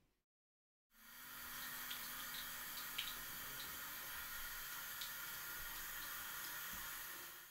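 Bathroom sink tap running steadily into the basin, starting about a second in, with a few faint clicks and knocks.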